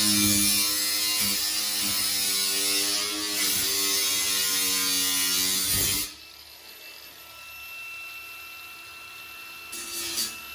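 Cordless cut-off tool with an abrasive disc cutting galvanized sheet-metal line set cover, a high whine with hiss whose pitch wavers as the disc bites. It stops abruptly about six seconds in, followed by a brief short burst near the end.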